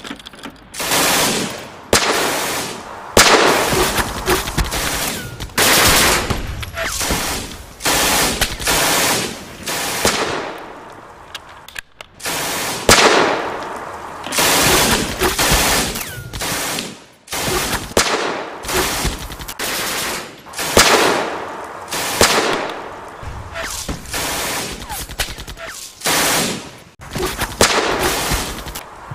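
Sustained battle gunfire: repeated bursts of fire from a German belt-fed machine gun mixed with bolt-action rifle shots, one volley after another with only short gaps between them.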